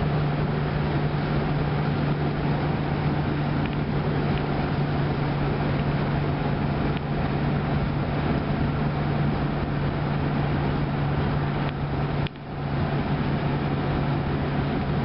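1936 Ford driving at a steady cruise, heard from inside the cabin: an even engine drone with road noise, briefly dropping away about twelve seconds in.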